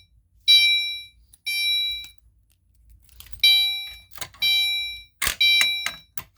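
Fire alarm horn sounding in the temporal-3 evacuation pattern: three half-second honks, a pause, then three more. Several sharp clicks and clunks come between them, the loudest about five seconds in.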